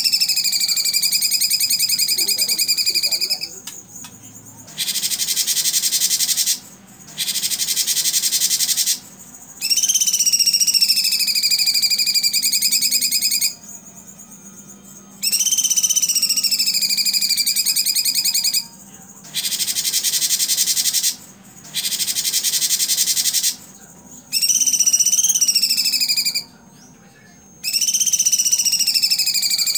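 Cucak cungkok songbird calling loudly in repeated phrases of a few seconds each with short gaps between. Long sliding whistled trills that drop in pitch at the start alternate with harsh, rapid buzzing bursts: the 'tembakan' (shooting) phrases that bird keepers prize.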